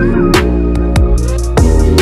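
Electronic background music with a heavy, steady bass line and sharp drum hits at a regular beat.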